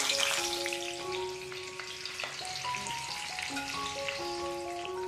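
Boiled eggs coated in salt and chilli powder sizzling in hot oil and ghee, a dense crackling hiss that eases off gradually as the oil settles around them. A soft background melody plays along with it.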